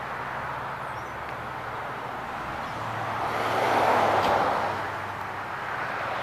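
21 HP Kawasaki V-twin engine on a YazooKees 52-inch walk-behind mower running steadily. A louder rushing swell comes and goes around four seconds in.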